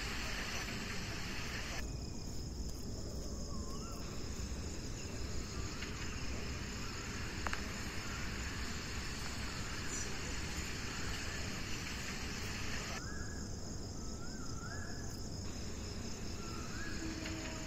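Steady rain falling on a paved terrace and potted plants, an even hiss throughout. A few short chirping calls come through now and then.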